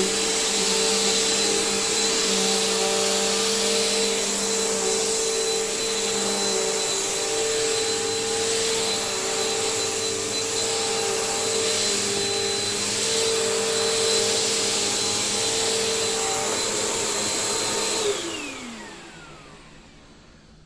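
Bissell Powerforce bagged upright vacuum cleaner running steadily with a whine over a rushing hiss, then switched off near the end, its motor winding down in a falling whine that fades away.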